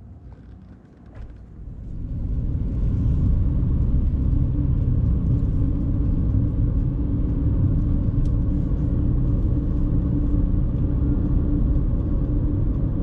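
A steady low rumble that swells in over about the first two seconds, then holds loud and even.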